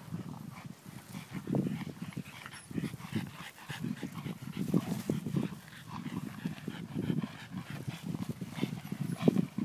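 French bulldog breathing hard in short, irregular bursts while gripping and tugging on a rope.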